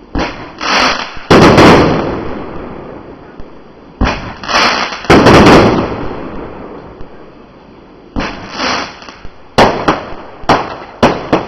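Fireworks going off in three volleys of loud bangs, each followed by a fading rumble. The last volley ends in a quick string of sharp cracks.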